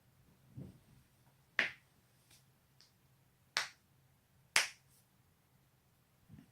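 A person's own joints cracking: three sharp, loud pops, the last two about a second apart, after a duller low knock and followed near the end by a faint click.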